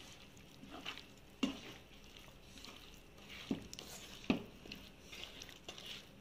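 A bare hand mixing paneer cubes and green capsicum into a thick yogurt-and-spice marinade in a nonstick pan: faint squelching with a few soft thuds, the loudest about one and a half, three and a half and four and a quarter seconds in.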